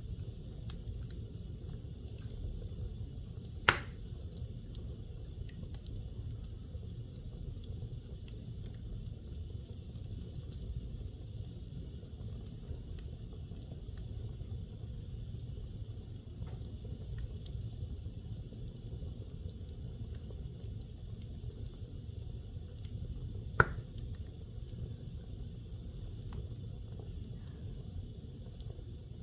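Fire burning in a fireplace: a steady low rumble with faint crackles, and two sharp loud pops, one about four seconds in and one about four-fifths of the way through.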